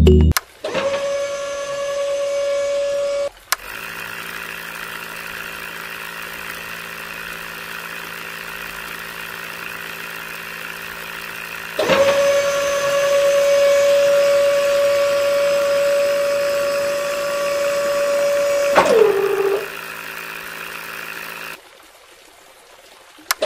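Small brushed DC motor driving a miniature drilling rig, running with a steady high whine that switches on and off. Between runs it gives a quieter steady hum. About nineteen seconds in the whine drops in pitch as the motor slows, and near the end it goes quiet.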